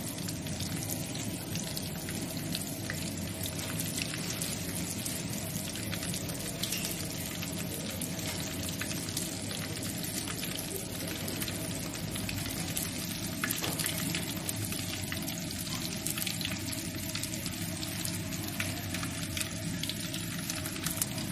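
Mustard seeds spluttering in hot sesame oil in a kadai, with peppercorns and fenugreek: a steady sizzle dotted with many small pops and crackles as the seeds burst.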